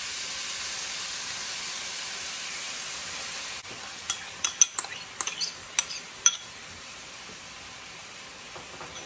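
Ground beef and minced garlic sizzling in hot oil in a pan: a steady hiss that drops a little about three and a half seconds in. A run of sharp clicks follows between about four and six seconds in.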